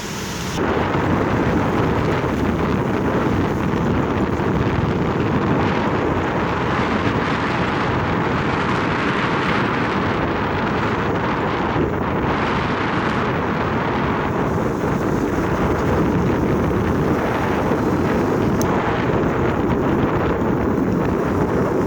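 Wind rushing over the microphone of a moving vehicle, with road noise under it: a loud, steady rush that comes up sharply about half a second in.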